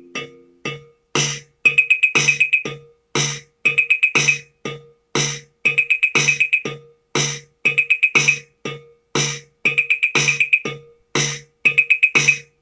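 Akai XR20 drum machine playing a looping beat at 120 BPM: low kick thumps, sharp snare-like hits and quick rolls of high ticks, repeating about once a second.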